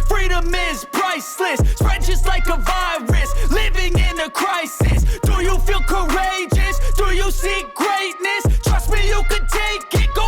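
Hip-hop backing music with a heavy, repeating bass beat and a vocal line over it.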